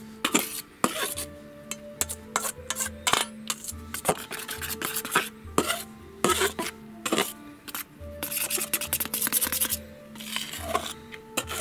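A table knife stirring dry flour in a stainless steel mixing bowl. The blade scrapes through the flour and clicks and taps irregularly against the metal bowl.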